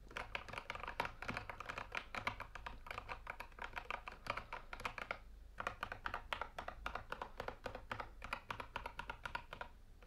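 Machenike KT68 hot-swappable mechanical keyboard with Kailh Box Red switches being typed on quickly: a dense run of key clacks, with a brief pause about five seconds in.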